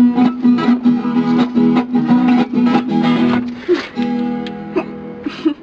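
Acoustic guitar being strummed in quick, even strokes, with chords ringing between them.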